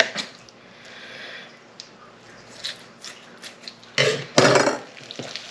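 Raw chicken being handled with kitchen scissors: faint clicks and rustles, then a short, loud two-part noise about four seconds in.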